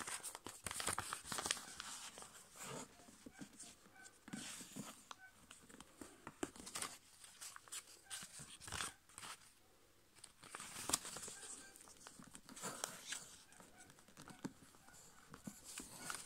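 A5 copy paper being folded by hand into a paper airplane: irregular rustling and sharp little crackles as the folds are pressed and creased.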